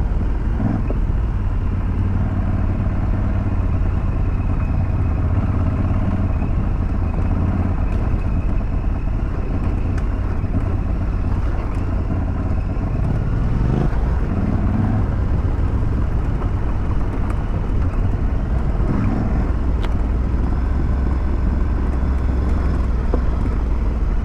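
2022 Aprilia Tuareg 660's parallel-twin engine running steadily while the bike is ridden on dirt tracks, the revs swelling briefly a couple of times over an even rush of noise.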